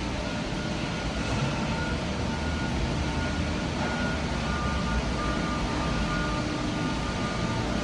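Steady vehicle noise: a continuous low rumble with hiss, like a large vehicle running or traffic going by.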